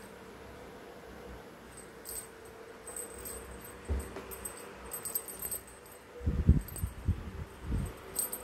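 Small jingle bell on a cat wand toy tinkling in short bursts as the toy is jerked and batted about by a kitten. A few dull thumps, the loudest sounds, come in the last two seconds.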